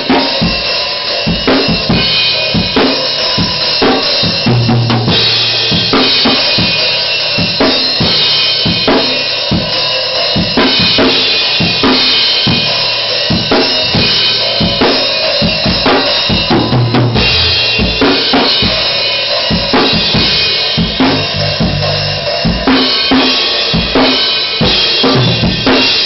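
Drum kit played fast and continuously, with kick drum, snare and cymbals, and low held notes underneath at times.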